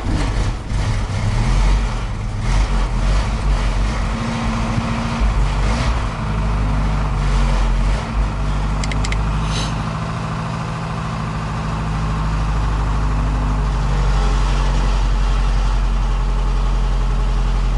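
Ford Transit's 1.6 four-cylinder petrol engine running on petrol just after a cold start, its revs wavering unevenly for the first ten seconds or so, then settling to a steady raised idle.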